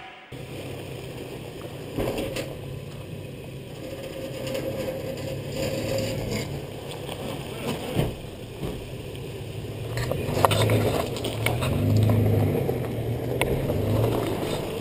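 Toyota FJ Cruiser's V6 engine running low and slow as it crawls over loose rock and gravel, with tyres crunching stones and a few sharp knocks and scrapes from underneath.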